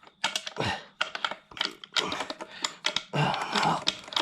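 Irregular metallic clicks and taps of a small magnet knocking against the inside of a Honda CRX gearbox case while fishing for a loose bolt behind the selector mechanism, with a short scrape a little after three seconds in.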